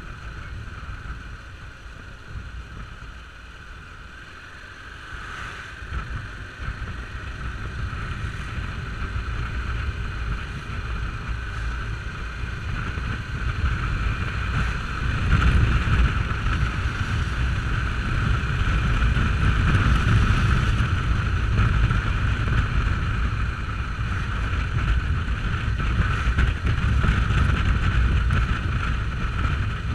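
Motorcycle riding at road speed: wind buffeting the camera microphone over the engine's steady drone. It grows louder from a few seconds in as the bike speeds up, then holds steady.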